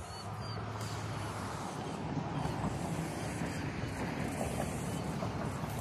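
Road traffic noise: a steady low hum with an even rush of tyre noise from cars on the road.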